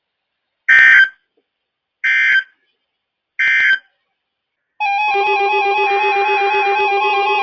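Three short bursts of buzzing digital data from a NOAA Weather Radio broadcast, about a second and a half apart: the EAS/SAME end-of-message code that closes a warning. About five seconds in, steady music starts.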